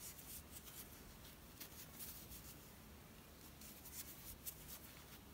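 Faint, irregular scratching and rustling of a metal crochet hook drawing yarn through stitches while half double crochets are worked, barely above near silence.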